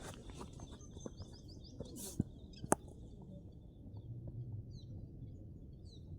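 Small birds chirping in short high calls over steady outdoor background noise, with two sharp knocks a half second apart a little past the middle.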